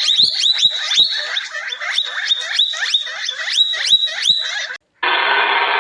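An animal's rapid high-pitched calls, each sweeping up and then holding briefly, about four a second. They stop abruptly near the end, and a steady hiss follows.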